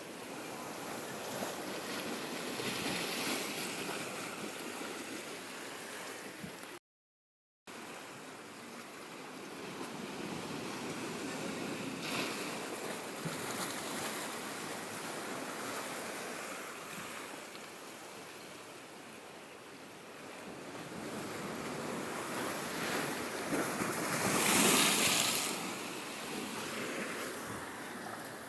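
Ocean waves washing onto the shore, swelling and fading, with a louder surge of surf near the end. The sound cuts out completely for about a second early on.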